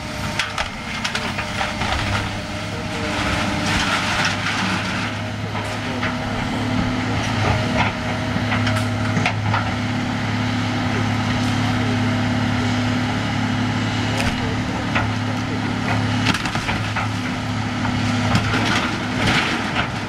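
Tracked hydraulic excavator demolishing a building: its diesel engine runs with a steady hum while the bucket tears at the wall, with repeated irregular cracks and crunches of splintering wood and debris, heaviest a few seconds in and near the end.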